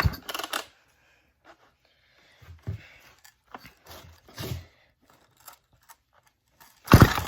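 Recoil starter cord of a McCulloch Pro Mac 610 chainsaw pulled in short, rasping tugs, turning the engine over against compression with a compression tester in the plug hole. There are several weak pulls, then a harder, louder one near the end. The starter is faulty and the saw is hard to pull over.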